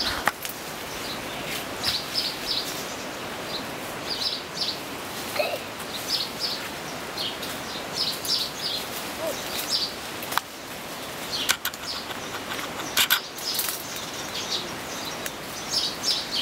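Small birds chirping in short, high notes, often two or three in quick succession, over steady outdoor hiss, with a few sharp clicks or knocks.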